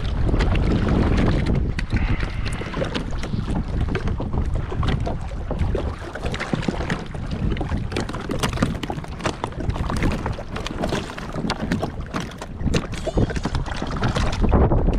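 Wind rumbling on the microphone, with water splashing and slapping against a plastic kayak's hull as it is paddled.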